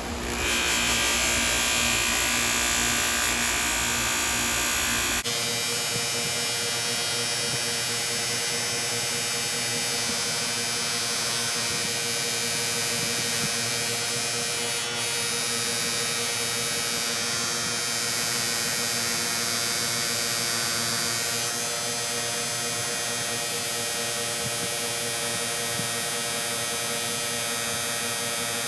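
Small electric motor running steadily with a buzzing hum, its tone changing abruptly about five seconds in.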